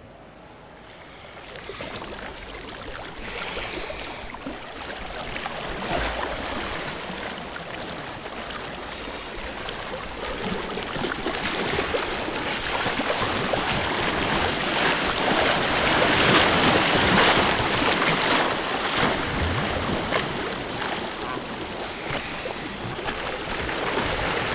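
Steady rushing noise like surf or running water, starting out of silence and growing gradually louder over the first two-thirds.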